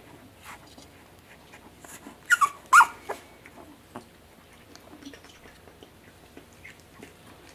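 English bulldog puppy giving two short, high whimpers, each falling in pitch, a little over two seconds in, with scattered light ticks around them.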